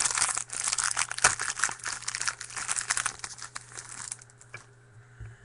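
Trading card pack wrapper being torn open and crinkled by hand, dense crackling for about four seconds that then dies away.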